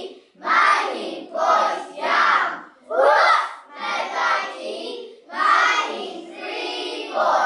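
A class of young children chanting together in unison, in short rhythmic phrases of about a second each with brief pauses between them.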